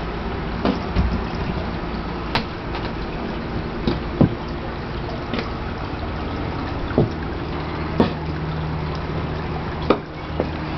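Backyard garden fountain with water trickling and splashing steadily, and separate drips plopping at irregular moments about every second, over a low steady hum.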